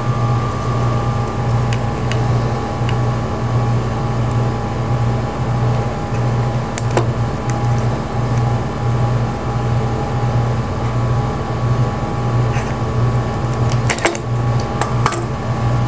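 Steady machine hum, like a room's air conditioning, with a low throb and a few fixed tones. A few light clicks of small tools and wire being handled come about seven seconds in and again near the end.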